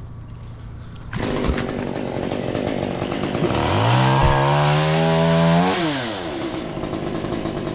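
Chainsaw engine running, starting abruptly about a second in. It revs up steeply, holds high for about two seconds, then falls back to a lower running speed.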